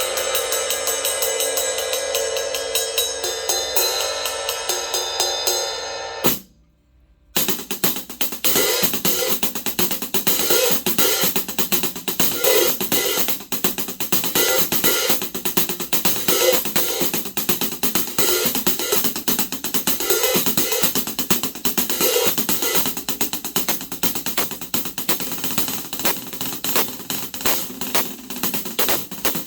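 A 14-inch Zildjian K Sweet hi-hat played in a fast, steady drum-kit groove, with other drums underneath. The playing stops for about a second around six seconds in, then starts again.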